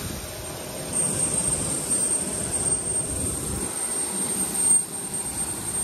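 Steady aircraft turbine noise on an airport apron: a rumble with a thin, high, steady whine over it.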